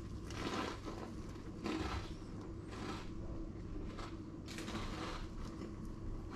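Short rustling and scraping handling noises about once a second from gloved hands and tableware, over a steady low hum.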